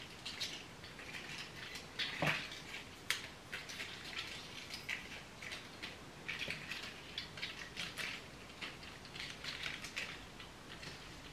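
Faint rustling and crackling of tulip stems, rosemary sprigs and leaves as they are handled and gathered into a bouquet by hand, with a sharper tap about two seconds in.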